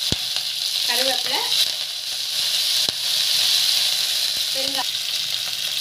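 Hot oil sizzling and spluttering in a non-stick kadai as green chillies, ginger and curry leaves hit a tempering of cumin, mustard seeds and dals: a steady hiss with a few sharp pops of spatter.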